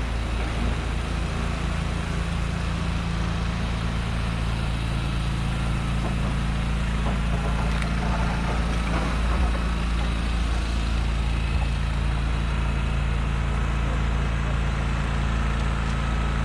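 A large engine running steadily, a low constant hum that keeps an even level.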